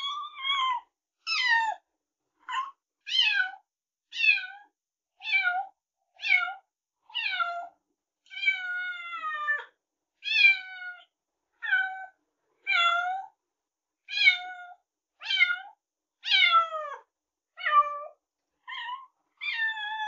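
A cat meowing over and over, about one short meow a second, each falling in pitch. One longer, drawn-out meow comes about eight seconds in.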